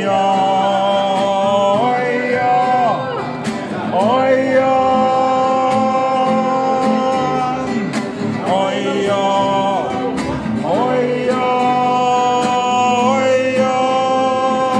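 A man singing with an acoustic guitar that he strums himself, holding long, level notes between short gliding phrases.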